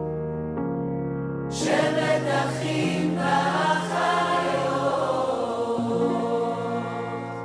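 Background music: a choir singing over sustained chords, the voices swelling in fuller about a second and a half in.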